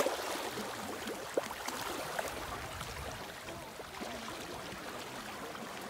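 Choppy water sloshing and splashing, with many small scattered splashes, as a school of salmon churns the surface.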